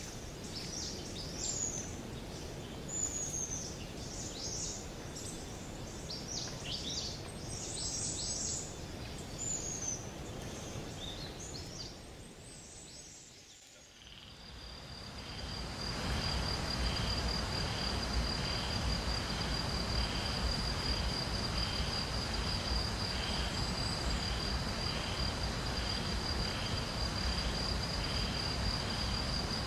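Birds calling outdoors, repeated short falling whistles about every second and a half over a background hiss. About halfway through, this fades out and an insect chorus fades in: a steady high-pitched trill with a softer chirp pulsing a little faster than once a second.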